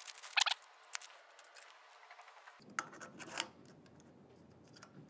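Faint rustling and light clicks of a small telescope eyepiece being unwrapped and handled, with a couple of sharper clicks about three seconds in.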